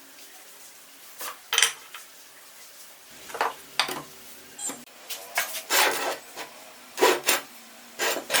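Irregular scrapes and metallic clinks of tools and parts being handled and rubbed against each other, in short uneven bursts that come more often in the second half.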